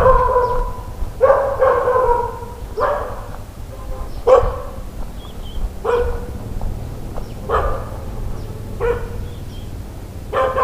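A dog barking repeatedly, about one bark every second or so, each bark short and sharp-edged.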